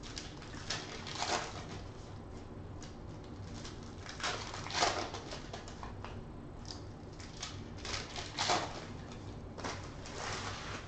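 Trading-card foil packs being torn open and the cards handled: irregular crinkling and rustling of wrappers and card stock, with a few louder bursts about a second in, around the middle and near the end.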